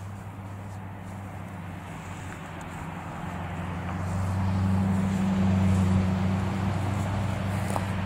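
A vehicle passing, its low hum swelling to a peak about halfway through and then easing off.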